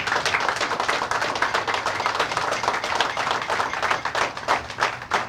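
A crowd of people applauding, a dense patter of hand claps that thins to scattered separate claps near the end.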